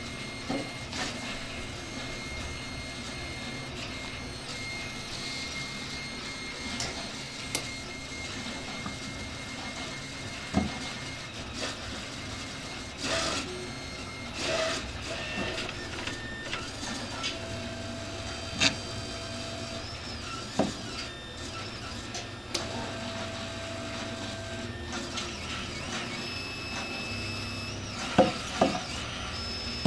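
Light knocks and clatter of a 3D-printed plastic pipe connector and a PVC tube being handled and set down on a tabletop, the loudest two knocks near the end. Under them runs a steady mechanical hum with a few thin whines that come and go.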